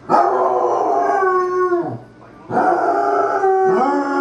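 A basset hound howling: two long howls with a half-second break between them. The first falls in pitch as it trails off.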